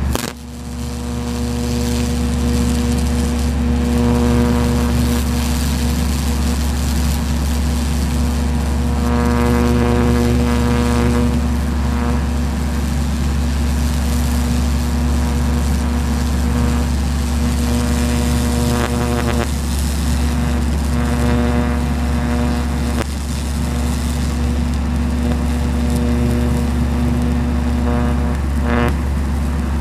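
High-voltage electric arc buzzing steadily as it burns into a pumpkin stem, a constant electrical hum whose higher overtones swell and fade every few seconds. A sharp snap comes at the very start.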